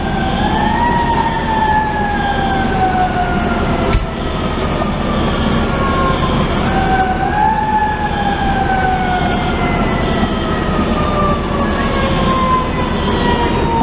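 Fire truck siren wailing in two slow cycles: the pitch climbs quickly, then sinks gradually over about six seconds before climbing again. A steady low rumble runs underneath.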